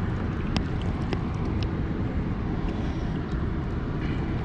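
Steady low rumbling noise of moving water, with a few small splashes and drips in the shallows.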